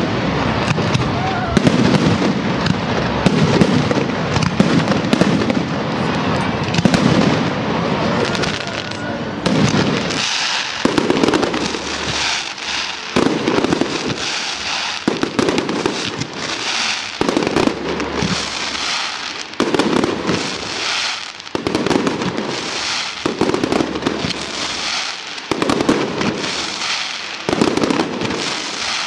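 Aerial fireworks shells bursting one after another with booms and crackling. The bursts are dense and continuous at first, then from about ten seconds in they come in an even pulse about once a second.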